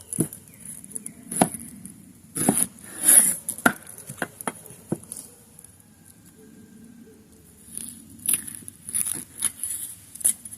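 An onion being peeled and cut with a knife: irregular taps, clicks and rustles, with a pause of about two seconds midway.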